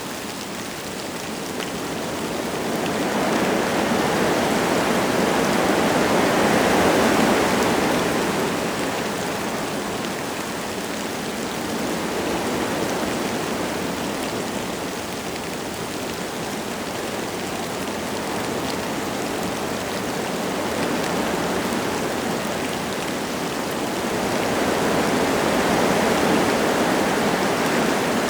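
Wind gusting through forest trees over a light rain, swelling into a strong gust a few seconds in, easing off, then building into another gust near the end.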